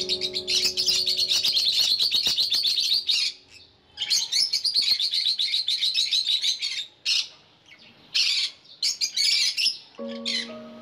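Peach-faced lovebirds chattering: fast, high-pitched twittering in two long runs, then a few shorter calls near the end.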